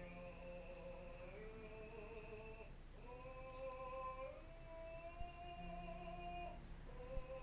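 A singer's voice humming or singing a run of held notes during vocal practice, each held about a second and a half before stepping to the next pitch, with a faint click or two near the end.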